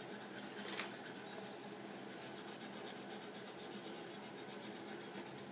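Coloured pencil scratching on paper in steady back-and-forth shading strokes, faint, with a slightly louder stroke about a second in.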